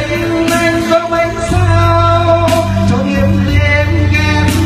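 A man singing a Vietnamese song live into a microphone over an instrumental backing track, amplified through a PA system. He holds long, wavering notes over a steady bass.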